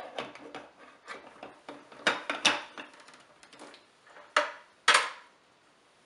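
Clinks and knocks of metal and glass as a portafilter and shot glass are set into an espresso machine. The loudest knocks come about two, two and a half, four and a half and five seconds in.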